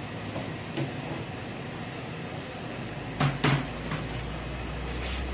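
Two sharp knocks in quick succession a little over three seconds in, with a fainter click before and after, over steady background noise.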